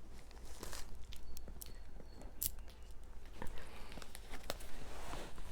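Scattered light clicks, taps and rustles of a cardboard shipping box being handled.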